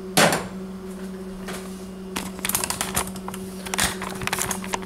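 Handling noise from a camera being picked up and moved: one sharp knock about a fifth of a second in, then a quick run of clicks and knocks from about two seconds in, over a steady low hum.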